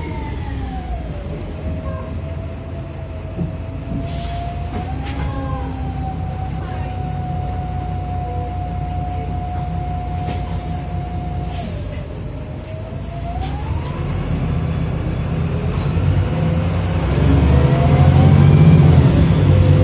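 Interior of a VDL SB200 single-deck bus with a Voith automatic gearbox: a drivetrain whine over the engine rumble. The whine falls as the bus slows and holds steady. It dips about twelve seconds in, then climbs as the engine grows louder and the bus speeds up towards the end.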